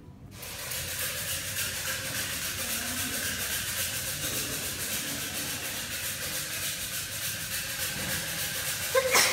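A steady rushing hiss starts abruptly just after the start. Near the end comes one short metallic clink that rings briefly.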